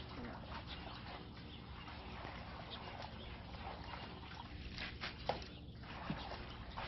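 Water running from a hose into a plastic tub, with light splashes as leafy greens are rinsed for kimchi.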